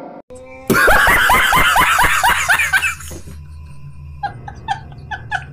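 A loud laugh sound effect, a burst of rapid 'ha-ha-ha' pulses lasting about two and a half seconds. From about four seconds in come quieter, short high-pitched squeaks, roughly two a second.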